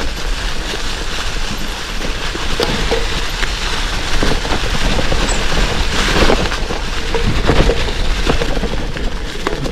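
Gravel bike on 650b×43 Panaracer GravelKing tyres rolling fast over a dirt and gravel trail: a steady crunching rumble with scattered knocks and rattles from bumps.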